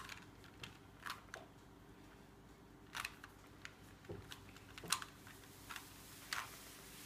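Rubik's Cube being turned by hand: scattered plastic clicks and clacks as its layers rotate, a dozen or so at an uneven pace.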